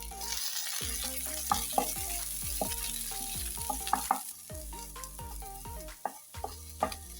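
Onion rings frying in hot oil in a pan, sizzling steadily, with scattered clicks of a spoon stirring them. Light background music plays underneath.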